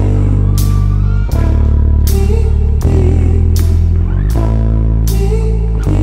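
Live rock band playing: electric guitar and bass guitar hold sustained chords that change about every second and a half, over drums with a sharp hit about every three quarters of a second.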